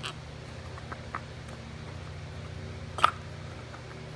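Faint clicks and taps of small engine parts being handled as a gasket and carburetor are fitted over the mounting studs, with one sharper click about three seconds in, over a steady low hum.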